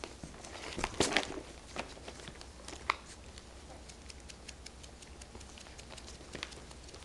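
Puppies play-wrestling: scuffling, pawing and small clicks and knocks of paws and bodies against the pen, loudest in a cluster of knocks about a second in, with a short squeak near three seconds in.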